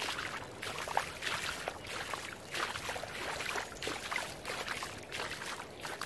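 Small waves lapping and washing on a sandy beach, an irregular splashing and fizzing of water with no steady tone.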